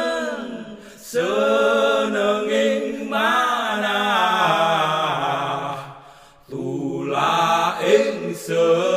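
A voice singing a Javanese prayer song in a slow, chant-like melody. The long held phrases break briefly about a second in and again about six seconds in.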